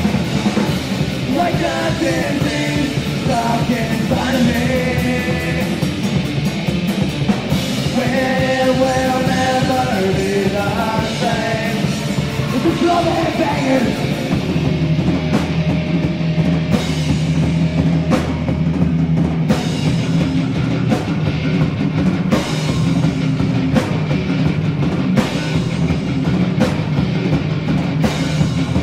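Punk rock band playing live, with electric guitars, bass and a drum kit. A sung vocal runs over roughly the first half, and the second half is instrumental with a steady beat.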